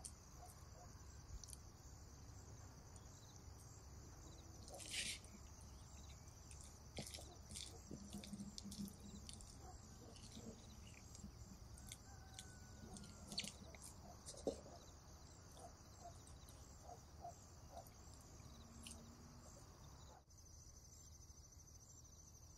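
Crumbly rice-flour dough being mixed in a glass bowl: faint, scattered scrapes and soft clicks over a steady faint high hiss, with one sharper click about five seconds in.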